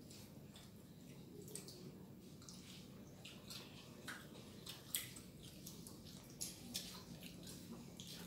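Faint, irregular wet smacks and clicks of two people chewing and picking up rice with their fingers from a banana leaf.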